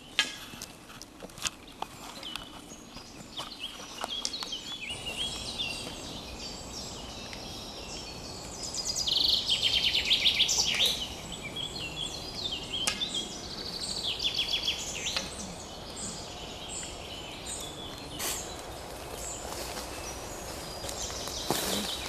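Woodland birds singing and calling, with a loud run of rapid trilled notes about nine to eleven seconds in, over a steady background hiss. A few sharp clicks come in the first few seconds.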